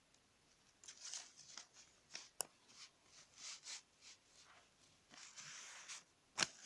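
Sheet of A4 paper rustling and being creased as it is folded by hand, in short faint bursts with two sharp clicks, one mid-way and one near the end.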